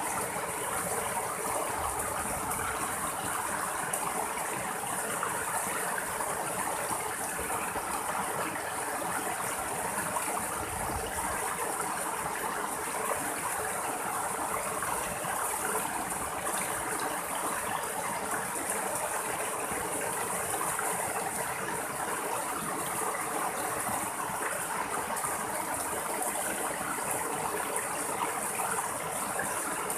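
Shallow rocky stream running over small cascades between boulders: a steady splashing and gurgling of water with no let-up.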